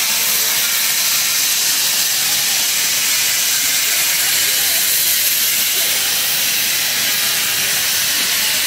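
LNER A3 Pacific 60103 Flying Scotsman standing in steam, with escaping steam making a loud, steady hiss.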